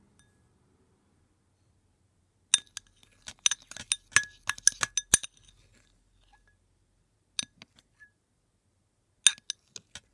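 Metal fork clinking against a glass bowl while stirring a thick glue-and-paint mixture. The clinks come in irregular clusters: a quick run a few seconds in, then a few more scattered clinks near the end.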